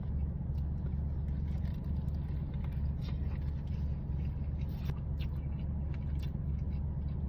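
Steady low rumble of a car engine idling, heard from inside the car, with faint scattered clicks over it.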